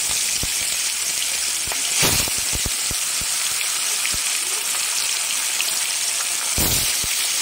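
Katla fish pieces sizzling and crackling as they deep-fry in hot mustard oil in a kadai. The hiss swells about two seconds in and again near the end as more raw pieces are slid into the oil.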